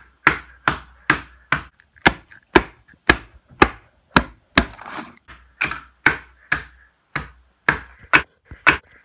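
A metal potato masher repeatedly bashing a raw egg in its shell on a plastic plate on a wooden bench, about two sharp strikes a second.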